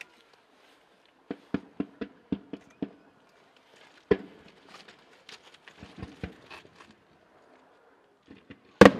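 Fireworks going off: a quick run of about seven sharp bangs, about four a second, then a louder bang about four seconds in and scattered smaller pops. Near the end comes a loud bang followed by a rumbling echo.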